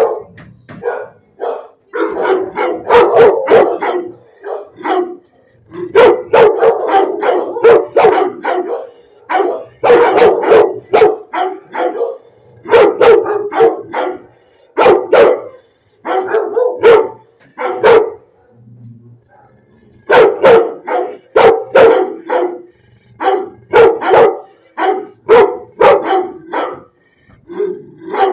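Dogs barking repeatedly in a shelter kennel block, loud bursts of barks in quick runs with a short lull about two-thirds of the way through.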